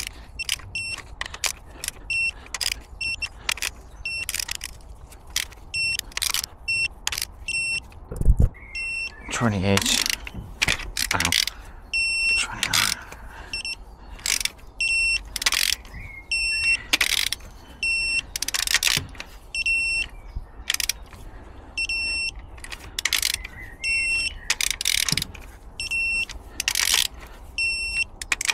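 A wrench ratcheting in short bursts of strokes as the camshaft retaining bolts on a DAF MX-11 diesel engine are tightened to torque, with a short high electronic beep repeating throughout.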